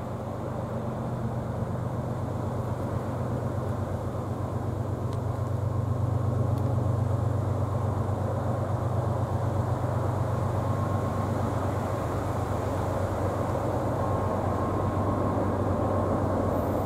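Diesel freight locomotives approaching on the line: a steady low engine drone that grows gradually louder.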